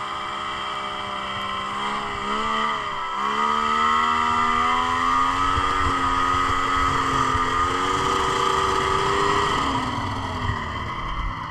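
Yamaha SXR 600 three-cylinder two-stroke snowmobile engine running under throttle. Its pitch dips briefly about two and a half seconds in, then climbs and holds. Near the end it falls away as the throttle comes off and the sled sinks into deep snow.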